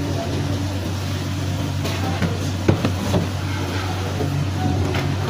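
A steady low mechanical hum with a few short knocks and clatters about two to three seconds in.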